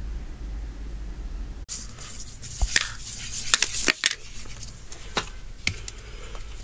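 Small plastic objects handled and set down on a wooden surface: a run of sharp clicks and knocks with brief rustles, after a low steady hum that cuts off about a second and a half in.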